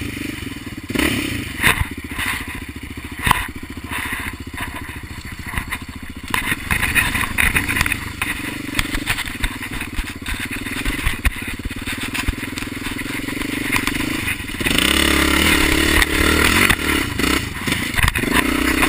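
Dirt bike engine running and revving up and down over rough ground, with rattles and knocks from the bike jolting over bumps in the first few seconds. About fifteen seconds in the engine gets louder under more throttle.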